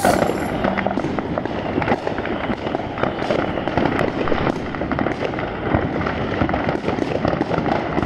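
Aerial fireworks going off: a dense, continuous run of sharp cracks and pops. The last sustained note of a song dies away in the first second.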